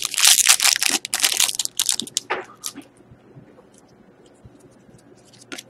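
Foil wrapper of a Panini Totally Certified hockey card pack being torn open and crinkled, a dense run of loud rustling tears for about the first three seconds. After that come only faint ticks as the cards are handled.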